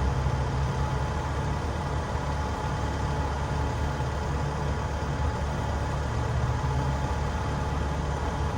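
An engine idling, a steady low rumble with a faint even whine above it.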